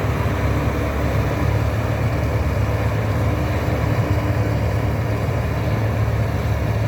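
Zoomlion combine harvester running steadily, its engine giving a constant low hum.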